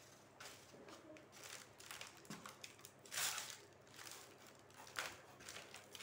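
Foil letter balloons crinkling and rustling under a shoe on concrete, with faint shuffling footsteps; one louder rustle of about half a second comes about three seconds in and a short click near the end.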